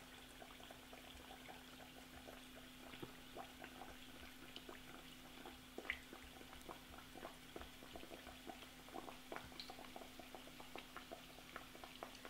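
A potato-stuffed kachori frying in oil on medium heat, sizzling faintly with many small irregular pops, over a steady low hum.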